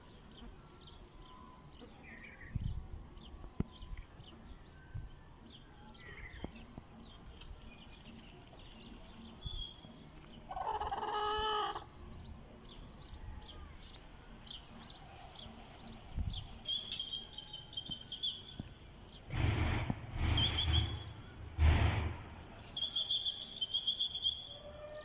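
Wild songbirds chirping and trilling over a chicken yard, with a chicken giving one call of about a second and a half about ten seconds in. A bit later, three loud rustling bursts in quick succession.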